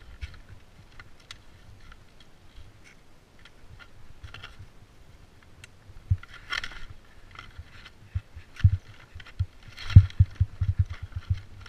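Skis scraping and knocking on rock and hard-packed snow: scattered light clicks, two louder scrapes about six and ten seconds in, and a run of dull knocks near the end.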